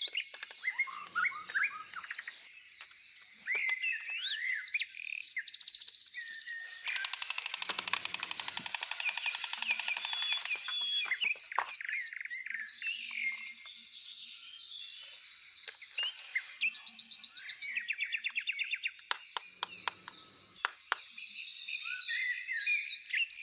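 Birds chirping and trilling, many short rising and falling calls overlapping. A loud rapid rattling call starts about seven seconds in and lasts some three seconds.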